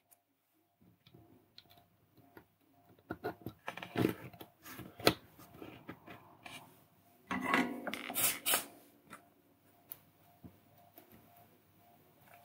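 Light scattered clicks and rubbing from hands handling a small circuit board, LED matrix and pin header as the parts are pressed together, with a busier stretch of rubbing and clicking about two-thirds of the way through.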